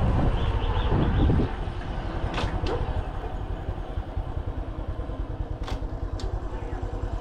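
Small motorcycle engine running with an even low putter, louder for the first second and a half and then settling lower, with a few short sharp clicks over it.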